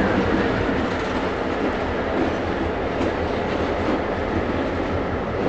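EMD GP38-2 and GP38-3 diesel-electric locomotives rolling slowly past with their engines running, a steady, heavy rumble mixed with wheel and rail noise.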